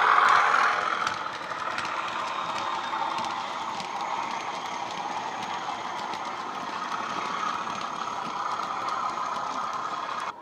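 Bachmann Class 37 model locomotive's Coastal DCC sound decoder playing a Class 37 diesel engine sound through its EM1 speaker, loudest at first and dropping about a second in as the loco moves away under the bridge, then running steadily. Small wagon wheels tick on the model track throughout.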